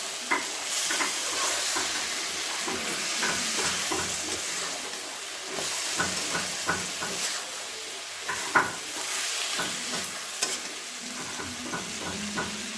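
Chicken frying in a pan, a steady sizzle, with scattered clicks and scrapes of a utensil stirring it against the pan.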